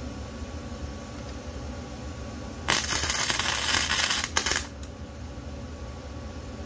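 Arc welder laying a tack weld on steel: the arc runs for under two seconds, about three seconds in, then sparks up again briefly just after.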